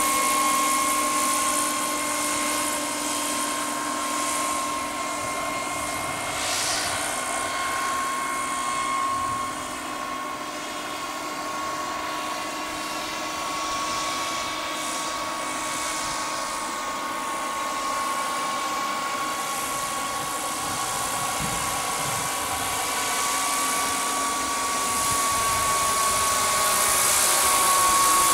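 Small gas-turbine engine of a scale RC Sikorsky S-64 Skycrane model helicopter in flight: a steady high whine over a hiss, quieter about a third of the way through and growing louder near the end as the helicopter comes closer.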